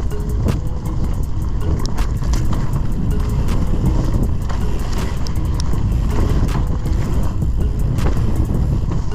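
Mountain bike descending a dirt singletrack: a steady rumble of wind on the microphone and tyres rolling over dirt and dry leaves, with frequent sharp rattling clicks from the bike jolting over bumps.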